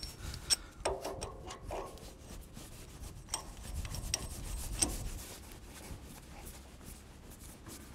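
Threaded hydraulic quick-disconnect coupling being pushed onto its machine-side fitting and spun up by hand: metal rubbing and scraping, with a few sharp clicks, mostly in the first five seconds.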